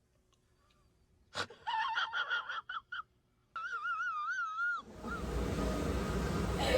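After a moment of dead silence, a click, then a stuttering high-pitched squeal and a warbling tone that wobbles up and down for about a second, followed by faint room noise.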